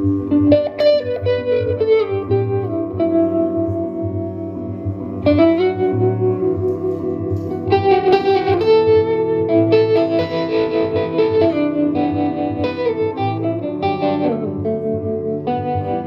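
Instrumental duet of bowed cello and picked hollow-body electric guitar. The cello holds long, low bowed notes while the guitar plays runs of picked notes and chords over them.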